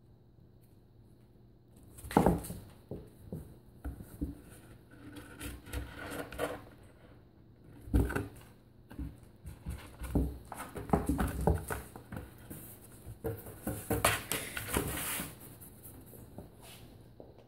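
A cat scrabbling and bumping about inside a cardboard box, claws scratching and rubbing on the cardboard, in irregular bursts. It starts about two seconds in with a sharp knock, another hard knock comes about eight seconds in, and it dies down shortly before the end.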